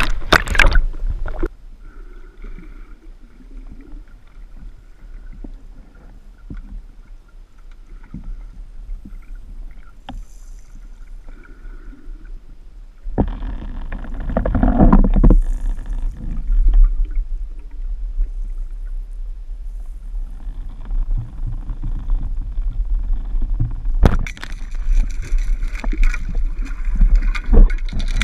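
Water sloshing and splashing around a camera held half in the sea, then muffled underwater water noise. About halfway through there is a loud rush of water, and from near the end loud churning and bubbling as the camera passes through the surface.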